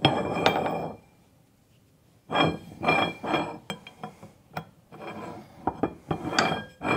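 Metal clinking and scraping as a steel collar and pipe are slid through a steel snow blocker bracket. It comes in several short bursts with sharp clicks, broken by about a second of dead silence a second in.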